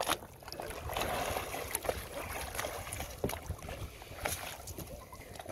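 Sea water splashing and sloshing as a man hauls himself out of the water onto a stand-up paddle board, with several sharp knocks and taps against the board.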